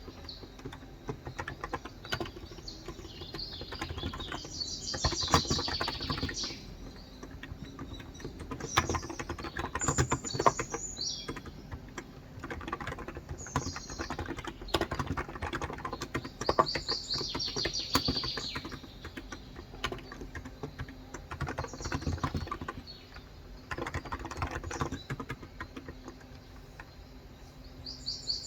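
Steady typing on a Cox Endeavor electrostatic capacitive (Topre-style) tenkeyless keyboard with 35 g switches: a continuous run of soft keystrokes. Birds chirp several times in short bursts.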